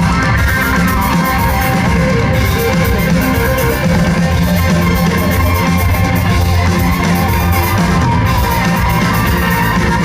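A rock band playing live, an instrumental passage with electric guitars, bass and drum kit at a steady, loud level and no singing.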